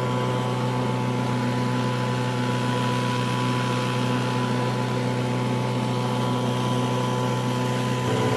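Outboard motor pushing a small sailboat, running steadily at an even speed with a constant hum.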